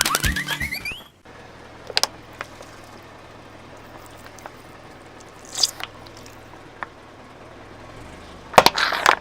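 Objects cracking and popping under a car tyre: a few isolated sharp cracks, then a loud cluster of crunches near the end, over a steady low background. A rising comic sound effect fades out in the first second.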